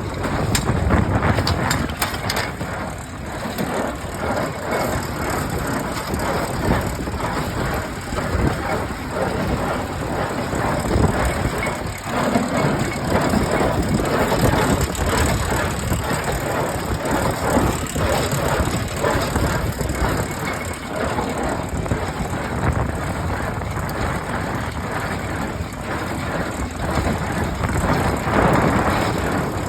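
John Deere 336 small square baler running, a steady mechanical clatter.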